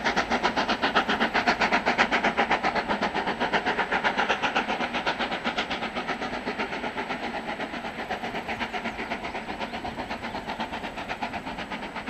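Steam locomotive working hard under load, its exhaust beating in a rapid, even rhythm as it hauls a train of carriages. It grows gradually quieter from about halfway through as the train moves away.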